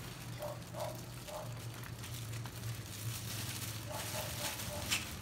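Clear plastic packaging rustling and crinkling as hands unwrap the play tent's white plastic connector pieces, over a steady low hum.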